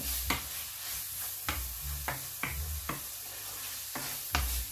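Minced beef sizzling in a frying pan while being stirred, with the spatula knocking and scraping against the pan about seven times.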